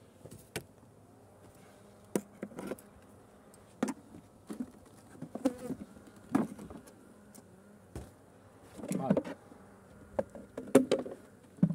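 Honeybees buzzing around an open hive, with single bees flying close past now and then, loudest near the end. Several sharp wooden knocks as the hive box is set down and handled.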